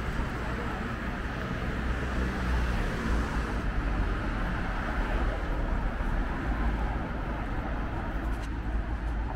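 Street ambience of road traffic: a steady low rumble and noise.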